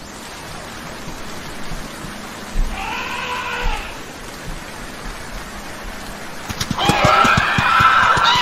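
Rain sound effect falling steadily. About three seconds in there is a short animal call that rises and falls in pitch, and from about seven seconds a louder, rougher animal call.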